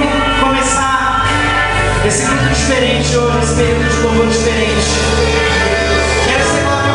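A live gospel worship band playing, with singing, and a steady beat that sets in about two seconds in.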